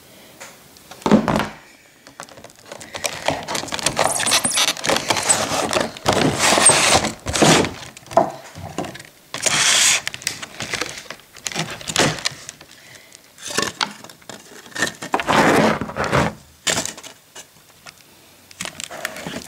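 Stiff clear plastic clamshell packaging being handled close up, crinkling and crackling in irregular bursts with sharp clicks and a few dull thuds.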